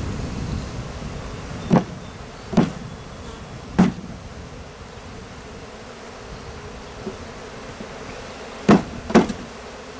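Honeybees buzzing steadily, with five sharp wooden knocks as the emptied nuc box is tapped to shake the last bees down into the hive: three spread over the first four seconds, then two close together near the end.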